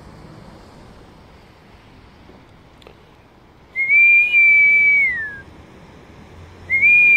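Falconer's recall whistle: two long, steady high whistles, the first about four seconds in and the second near the end, each ending in a downward slide. It is the signal calling the hawk in to the glove.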